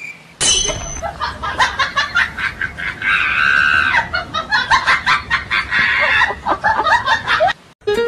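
Loud laughter in quick repeated bursts, cutting off suddenly near the end.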